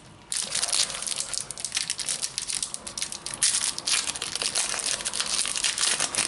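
Foil wrapper of a Panini Adrenalyn XL trading-card packet being torn open and crumpled by hand: dense crinkling and crackling, starting about a third of a second in.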